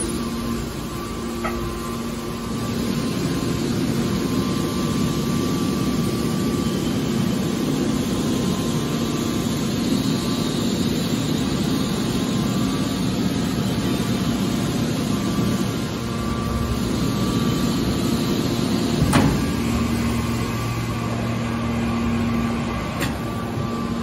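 Hydraulic scrap aluminum baler running: the electric motor and hydraulic pump give a steady humming drone. A single sharp knock sounds about nineteen seconds in.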